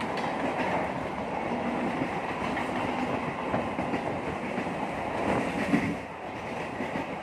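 Running noise of a Mumbai suburban electric local train, heard from inside the moving coach by its open door: a steady rumble and rattle of wheels on the rails. A single sharp knock stands out a little before six seconds in.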